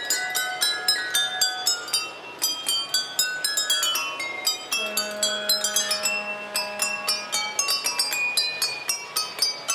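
Water-filled wine glasses struck in quick succession by the mallets on a passing model train, each ringing at its own pitch so the clinks form a classical melody. About halfway through, a lower note is held for roughly three seconds under the strikes.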